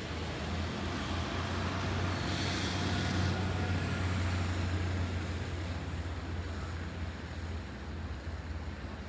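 City road traffic: a motor vehicle's engine with a steady low hum, and the noise of a vehicle passing that swells to its loudest about three seconds in and then fades.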